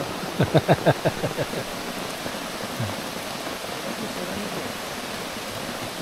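Steady rain falling, an even rushing hiss on the canopy and the wet deck. In the first second or so a brief burst of loud, rapid sounds stands out above it.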